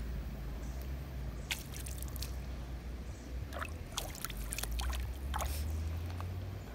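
Shallow river water trickling, with a scatter of small, sharp splashes as a Japanese chin wades through it, over a steady low rumble.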